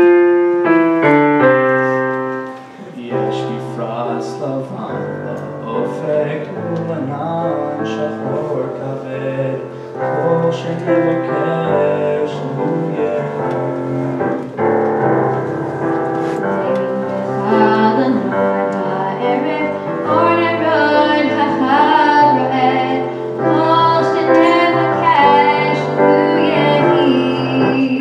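Slow piano music on a digital piano, opening with a loud struck chord, with a voice singing over it.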